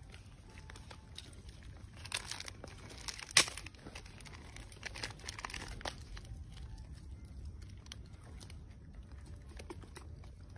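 Plastic snack wrapper crinkling as a macaque mother and her baby handle it, a cluster of crackles about two to six seconds in, the sharpest click about three seconds in.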